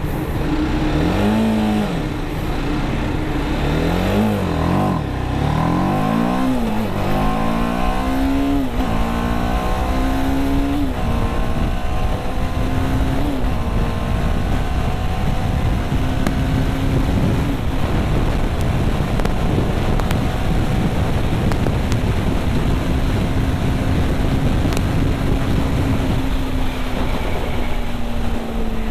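TVS Apache RR310's single-cylinder engine at full-throttle acceleration in its power-restricted Urban mode. The revs rise and drop at each upshift, the shifts coming further apart, then the engine pulls slowly and steadily in top gear, with wind rushing over the microphone.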